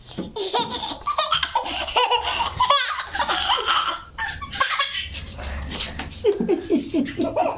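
A small child laughing and giggling, with high squeals and a run of quick rhythmic laughs near the end.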